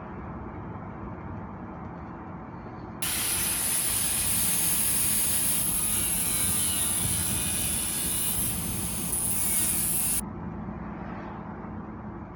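C10 pickup truck running down the road, a steady low engine and road rumble. About three seconds in a loud steady hiss cuts in suddenly over it and cuts off just as suddenly some seven seconds later.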